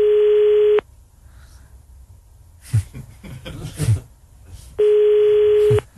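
Telephone ringback tone heard over the line: a steady tone lasting about a second, sounding twice about four seconds apart, as a call rings on the other end without being picked up.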